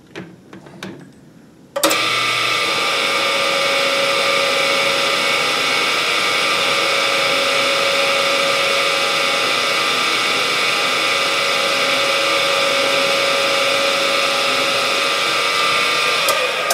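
A drill press motor starts about two seconds in and runs with a steady whine while a large twist drill bores into a 454 big-block Chevy crankshaft counterweight, taking out metal to balance the rotating assembly. It winds down near the end.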